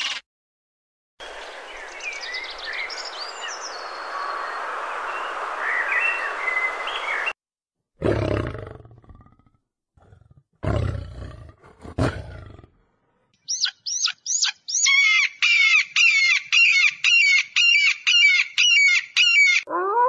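A lion roaring: two deep, heavy roars about two and a half seconds apart. Before them comes a steady hiss with high bird chirps, and after them a bird calls in a fast repeated series, about two and a half calls a second.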